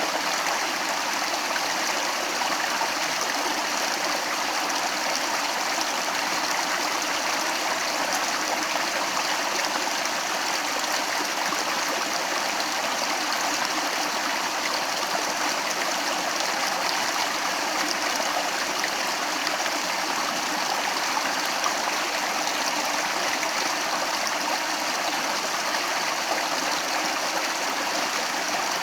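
A stream of water flowing and splashing steadily, an even rushing with no pauses.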